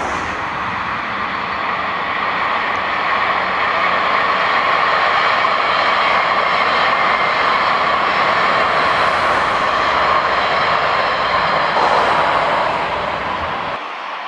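Steady roar of a passing train rolling on the rails, dropping away suddenly near the end.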